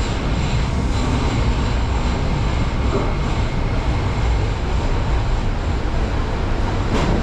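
Tokyo subway train pulling into the platform, a steady loud rumble of wheels and running gear, with a brief sharp click near the end.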